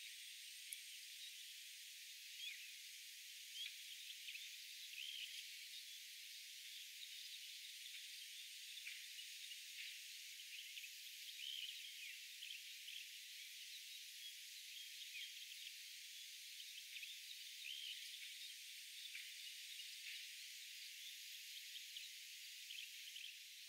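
Faint outdoor nature ambience: a steady high hiss with many short chirps scattered throughout.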